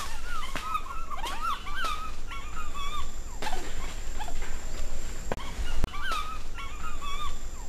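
Animal calls: a rapid series of short chirping squeals, several each second, with a few sharp clicks among them.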